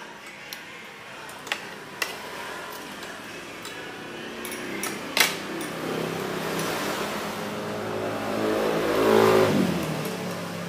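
A motor vehicle drives past, its engine getting louder to a peak about nine seconds in, then dropping in pitch as it goes by. A few sharp clinks come earlier, the loudest about five seconds in.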